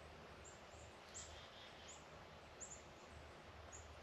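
Faint bird chirps, short high notes every second or so, over quiet woodland air.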